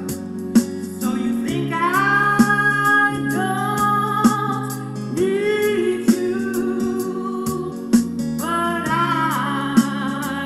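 A woman singing over backing music with a slow, steady beat.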